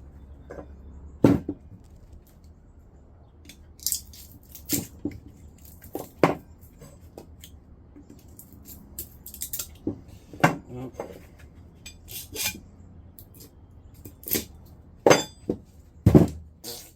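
Irregular metal clinks and knocks, a dozen or so, as scrap microwave parts are handled and tested. The loudest come about a second in and near the end.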